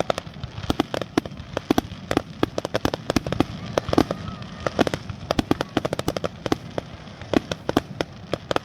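Fireworks show: a rapid, irregular stream of sharp pops and crackles, several a second, over a steady low rumble.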